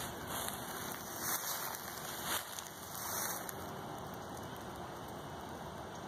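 Faint, steady outdoor background hiss, with a few soft rustles about one, two and three seconds in.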